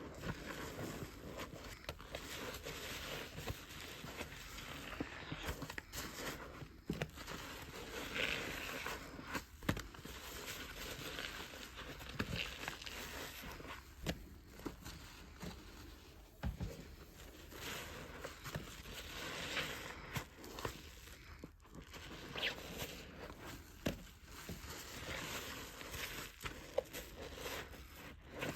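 A soapy sponge being squeezed over and over by hand, wet noise coming in irregular surges with scattered sharp clicks.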